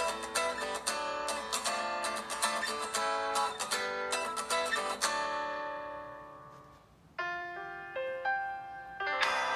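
Samsung Galaxy S5 stock ringtones. A plucked, guitar-like melody ends on a chord that rings out and fades over about two seconds. A second ringtone then starts with a few clear single tones, and a fuller passage comes in near the end.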